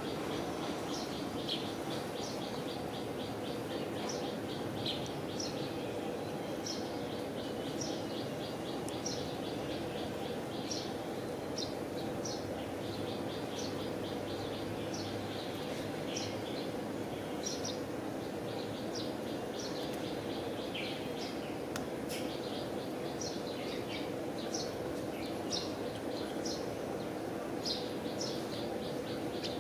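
Small birds chirping over and over in short high calls, some run together into quick rattling trills, over a steady low hum.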